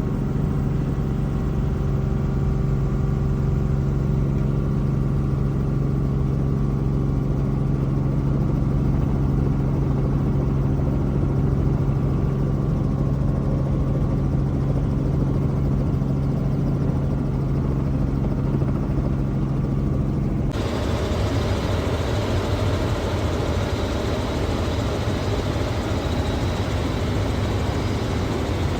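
Helicopter running with a steady deep engine hum. About twenty seconds in, the sound switches abruptly to a broader, noisier rush of engine and rotor.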